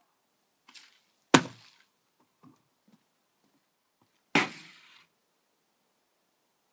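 A partly filled plastic water bottle flipped and landing upright twice, a sharp thud each time, about three seconds apart; the first, on wooden decking, is the louder.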